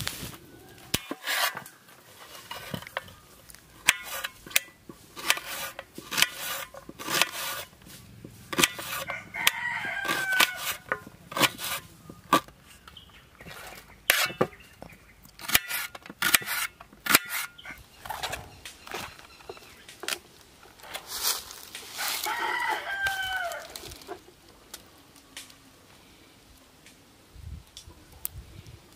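A rooster crowing twice, about ten seconds in and again about twenty-two seconds in, over many short sharp taps of chopping on a board.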